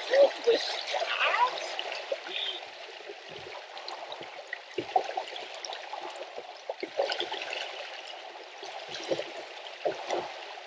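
Freshwater spring trickling down over rocks: a steady run of water with many small splashes and drips.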